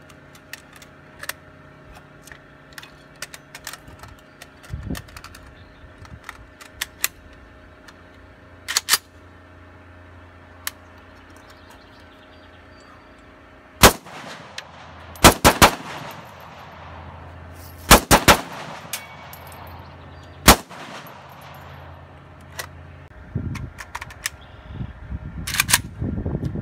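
Firearm shots: scattered faint reports in the first half, then loud shots from about halfway through, single shots mixed with quick strings of two or three, and a pair near the end.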